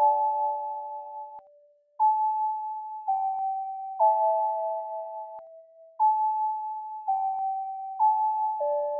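Sonification of planets in orbital resonance: ringing notes from a pentatonic scale, each planet's note sounding as it completes a full or half orbit, so that planets reaching those points together ring as a chord. The notes come on a steady beat of about one a second, often two or three at once, each fading away.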